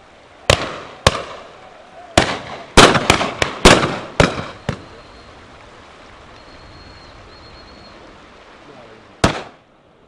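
Shotguns firing at driven partridges from several guns: about ten shots, most in a quick ragged volley during the first five seconds, then a single last shot near the end.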